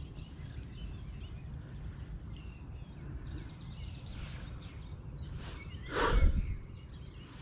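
A person walking over the ground carrying fishing gear: footsteps and the rustle of bags over a low rumble, with one louder rustle and thump about six seconds in. Birds chirp faintly in the background.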